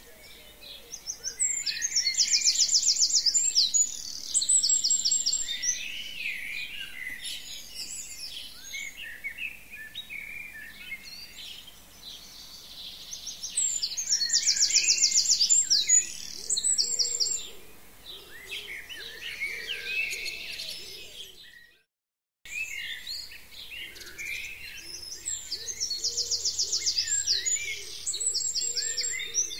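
Songbirds singing: one bird repeats a loud, fast trilled phrase three times, about twelve seconds apart, among other chirps and calls. The sound cuts out completely for about a second two-thirds of the way through.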